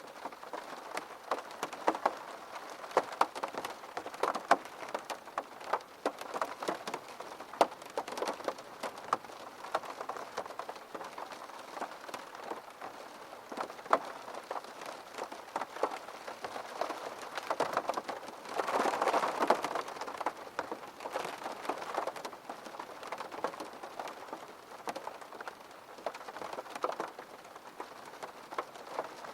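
Steady rain with many separate drops pattering on a surface, and a heavier, louder spell of rain about two-thirds of the way through.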